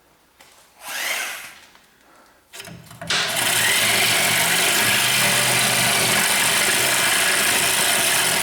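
Reciprocating saw (Sawzall) starting about three seconds in and running steadily, cutting through a rusted rear shock absorber bolt whose nut had stripped and would not come off. A brief rustle comes about a second in, before the saw starts.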